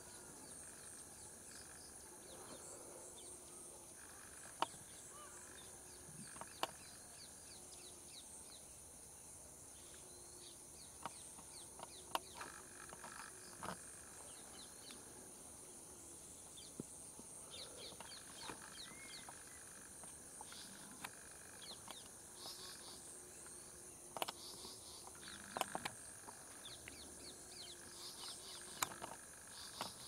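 Faint forest-edge ambience: a steady high-pitched insect drone with scattered short bird chirps and calls, and a few sharp clicks.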